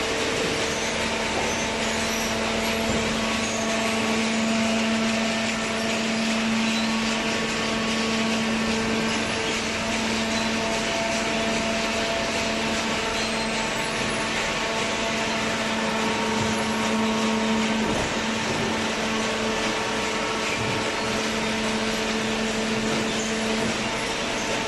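Hydraulic cardboard baler running: a steady machine hum with a few held tones over a broad mechanical noise.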